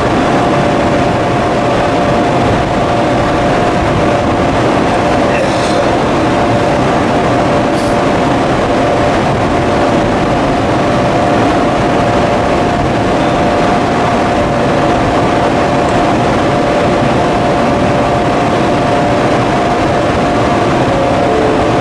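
ED76 electric locomotive standing at the head of a freight train with its onboard equipment running: a steady drone with a thin, steady whine held over it.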